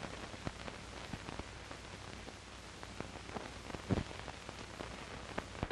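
Old optical film soundtrack hiss with scattered crackles and pops, a few louder clicks among them; no clear sound event.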